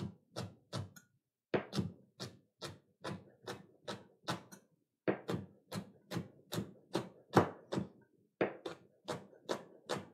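Chef's knife slicing scallions thinly on a cutting board: a steady run of sharp knife taps on the board, about three a second, with a few brief pauses.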